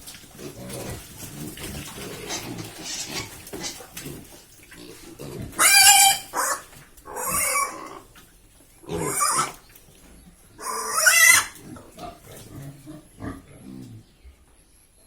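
Pigs grunting in short low pulses, then four loud, high-pitched squeals in a row, each under a second long and about a second and a half apart.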